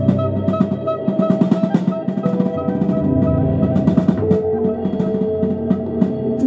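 A jazz trio playing live: fast, dense drumming under long held notes that step down in pitch.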